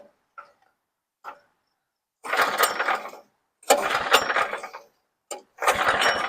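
Briggs & Stratton engine on a portable sawmill being pull-started three times, each rope pull a rough rasping burst of about a second, without the engine catching.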